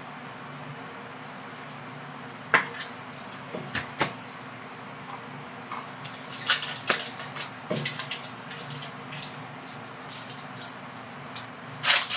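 Trading cards being handled: scattered sharp clicks and taps with short papery rustles, busiest from about six to nine seconds in, over a steady low hum.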